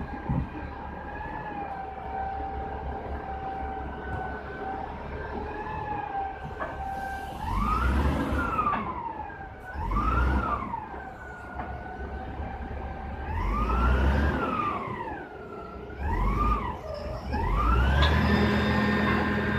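A machine's motor running steadily with a whine. It then revs up and down four times, the pitch swelling and falling with a heavier rumble each time, and climbs to hold a higher pitch near the end.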